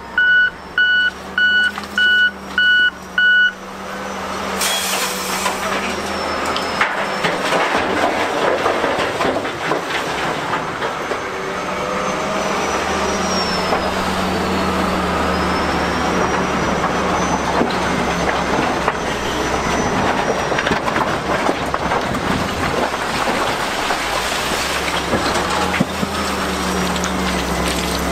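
A reversing alarm beeps about twice a second for the first few seconds. Then the diesel engine of a Broyt D1000T tracked hydraulic shovel comes up and runs hard under load as its bucket digs into a pile of broken quarry rock, with rock scraping and clattering throughout.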